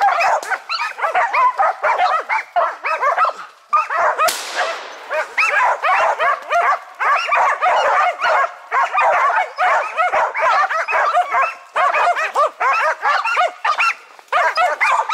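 Karelian-Finnish laikas barking fast and without pause, the high, rapid bay of hunting dogs that have treed a marten. A brief rushing hiss comes about four seconds in.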